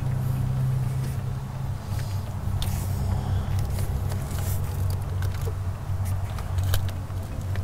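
A steady low hum runs throughout. Over it come scattered light clicks and rustling as hands work a short piece of rubber fuel hose onto the end of a glow plug close to the microphone.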